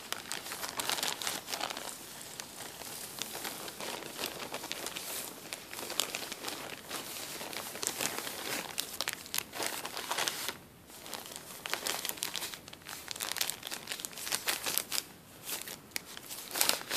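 Clear plastic bag full of cotton balls squeezed and moved by hand, a dense crinkling and crackling of thin plastic with a short lull about ten seconds in.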